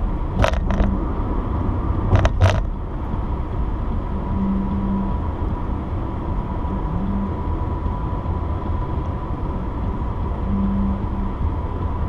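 Steady road and engine noise inside a car cruising at highway speed, heard from the dashboard. Two quick pairs of sharp knocks come about half a second in and again about two seconds in.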